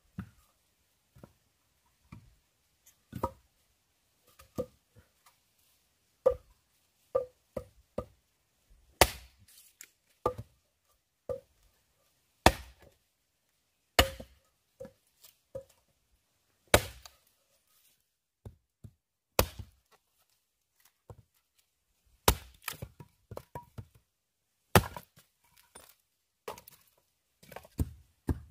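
Chopping with a blade: single sharp chopping strokes at an irregular pace, some struck harder than others, coming faster near the end.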